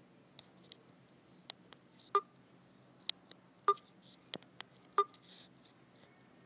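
Scattered sharp clicks and light taps, three of them with a brief ringing ping, over a faint low steady hum.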